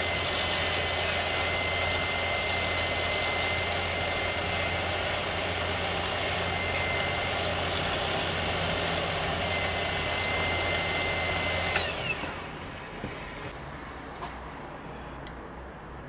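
Wood lathe spinning a holly pen blank while a square-shanked turning tool cuts it: a steady whirring hiss with a thin high whine. About twelve seconds in it cuts off, leaving a quieter background with a few light clicks.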